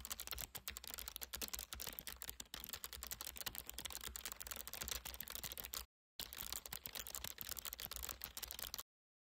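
Computer keyboard typing sound effect: a rapid, continuous run of key clicks that breaks off for a moment about six seconds in, resumes, and stops shortly before the end.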